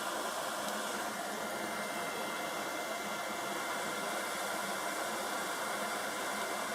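Hot-air gun blowing steadily, an even airy hiss with a faint steady whine in it, used to heat the charge port's pins.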